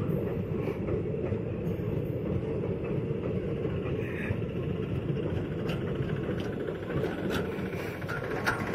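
Blue passenger coaches of an Indian Railways express passing close by, their wheels running on the track in a steady low rumble, with a few sharp clicks in the second half.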